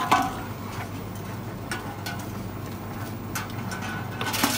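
Reverse vending machine taking in aluminium drink cans over a steady hum: a sharp clatter as a can is pushed into the round intake just after the start, a few lighter clicks, and another clatter near the end as the next can goes in.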